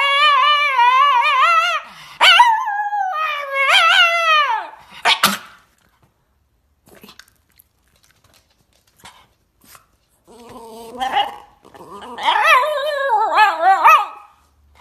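Shiba Inu howling in long wavering cries, which break off about five seconds in. After a few quiet seconds it starts again about ten seconds in, with a shakier, more broken run of howls and yips.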